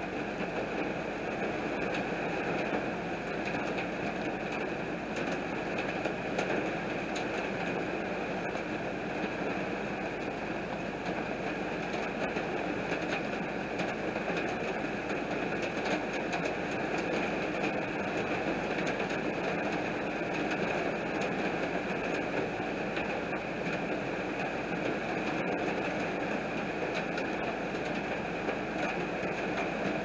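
Steady heavy rain falling on glass and a wet road, an even hiss with many small drop ticks.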